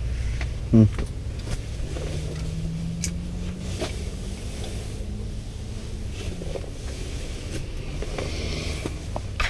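A steady low rumble with a faint motor hum that slowly rises in pitch and then drops away about six seconds in. A few light clicks and rustles over it.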